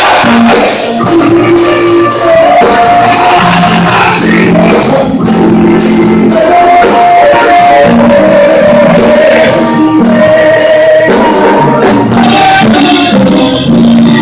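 Live gospel music: a man singing lead into a microphone, with women's backing voices and instrumental accompaniment. The recording is very loud, with long held notes changing every second or so.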